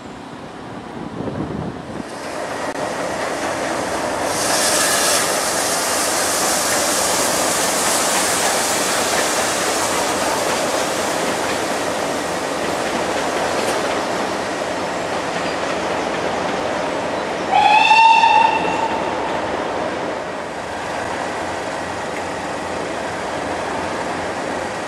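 Steam train working past, a steady rush of exhaust and rolling carriages, with a louder hiss about four seconds in. About 18 seconds in the locomotive gives one short whistle blast, a single pitch that slides up slightly as it starts.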